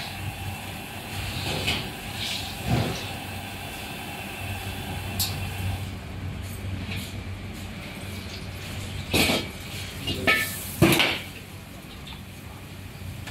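Wok-station gas burner running with a steady rush while food fries in oil in a wok, with metal clanks and scrapes of a ladle against the wok and strainer, the loudest cluster about nine to eleven seconds in.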